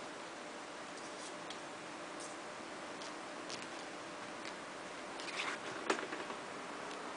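Ferrets scuffling at play on a fabric armchair: small scattered clicks and ticks over a faint steady hiss, with a short burst of louder clicks and one sharp knock about five to six seconds in.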